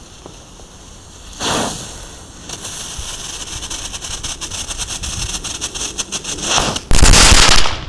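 Category 1 crackling fountain firework going off: a short flare about a second and a half in, then the fountain hissing with a dense stream of rapid crackles that builds steadily, ending in a much louder rush of crackling near the end that cuts off abruptly.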